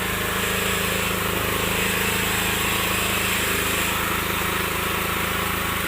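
An engine-driven machine running steadily: a constant low hum with a hiss above it and no change in speed.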